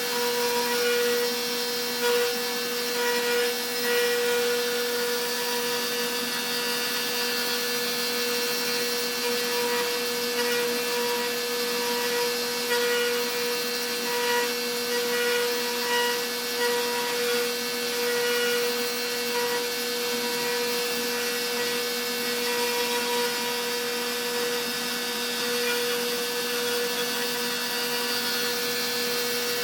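Stepcraft M1000 CNC router V-carving wood: the spindle runs with a steady whine, and the bit cutting the wood adds a rasping noise that swells and eases a little as it moves.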